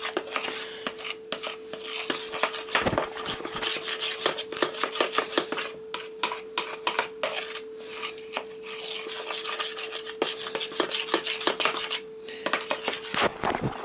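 A metal fork stirring and beating a thick flour-and-sparkling-water batter in a plastic bowl, with a rapid run of clicks and scrapes against the bowl's sides that pauses briefly near the end.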